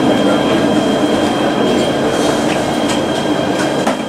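Alstom Citadis tram running along street track, heard from inside the driver's cab: a steady rolling rumble with a steady high whine above it and a few sharp clicks from the wheels and rails.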